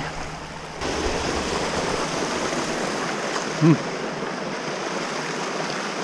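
Creek water rushing over boulders, a steady hiss that steps up louder about a second in, with one short vocal sound from a person midway.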